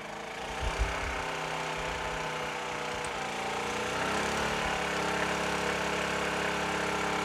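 Honda EU2000 inverter generator's single-cylinder engine speeding up as a space heater's load of about 1.6 kW comes on. Its pitch rises over the first few seconds, then holds steady under the load.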